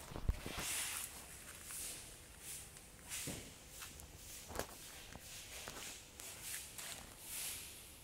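Soft scuffing steps and rustling, with scattered small clicks and one low thump about a third of a second in.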